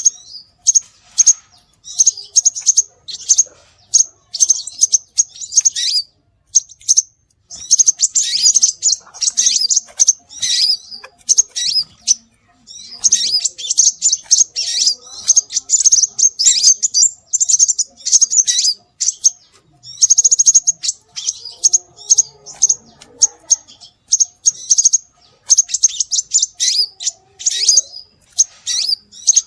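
Scarlet minivet (sepah raja) calls played as a bird-luring recording: rapid high-pitched chirps and twitters in bursts of a few seconds, with short pauses between them.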